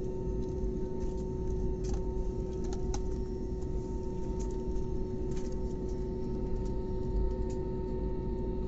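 Jet airliner cabin noise: the engines' steady drone with a constant hum, and a few light clicks and rattles about two, three and five seconds in.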